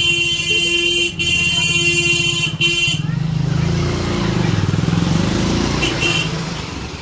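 A loud horn blares in three blasts over the first three seconds, then sounds one short toot about six seconds in, over a low rumble.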